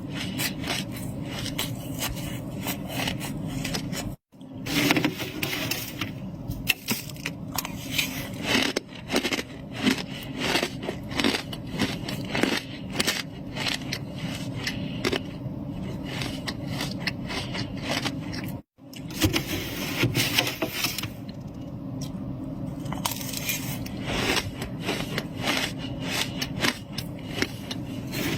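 Freezer frost being scraped and crunched: a dense, irregular run of crackling crunches, broken twice by a sudden brief silence, about four seconds in and about two-thirds of the way through.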